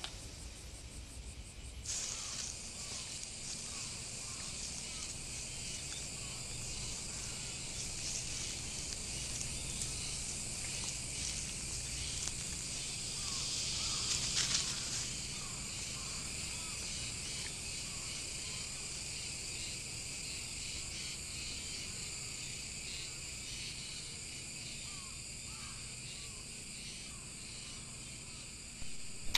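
Forest ambience of insects buzzing steadily at a high pitch, starting about two seconds in, with faint short chirps scattered through it.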